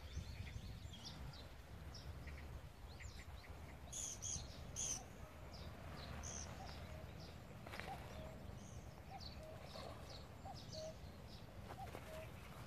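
Small birds chirping, many short high chirps coming one after another, over a steady low rumble of outdoor background noise.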